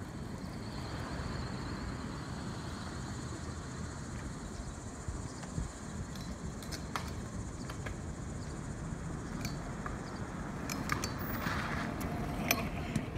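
Freestyle scooter wheels rolling on asphalt as a low rumble, with several sharp clacks of scooters striking the ground spread through.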